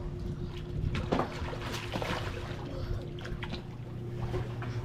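Water splashing and sloshing around a swimmer after a jump into the lake, over a steady low hum.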